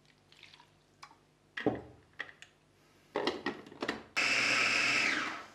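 Clicks and knocks as the lid is fitted onto a mini food processor bowl, then its motor runs in one loud steady burst of about a second, whizzing a thick kimchi paste of ginger, garlic, chili flakes and water, and winds down at the end.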